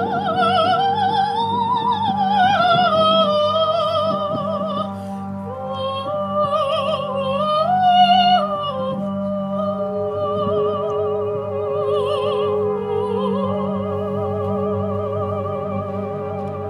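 Operatic soprano singing a slow melody with wide vibrato, rising and falling and peaking loudest about halfway through, over a steady sustained drone.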